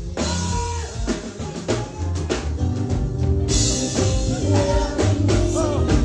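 Loud band music through a stage sound system: a drum kit keeping a steady beat over a heavy bass line, with a held melody note near the start.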